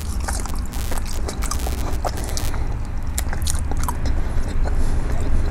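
A person biting into a steak fry and chewing it, with many small irregular crunches and mouth clicks over a low steady hum.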